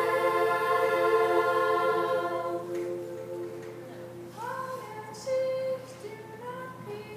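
Children's choir singing a held chord that fades out about three seconds in. After it come a few softer sung notes, one sliding up in pitch.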